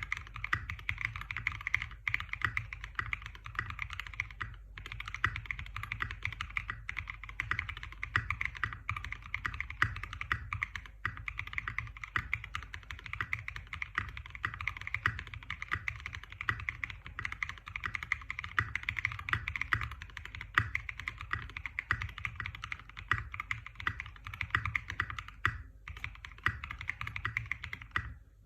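Custom 60% mechanical keyboard with lubed Black Cherry Pie linear switches, an FR4 plate, no foam and SA profile keycaps, typed on fast and continuously. The keystrokes blur into a dense run of clicks with a couple of brief pauses.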